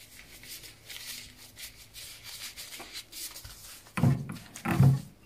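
Plastic-gloved hands rubbing and folding a piece of pastry dough. About four seconds in, two dull thumps come as the palm presses the dough flat on the pastry mat.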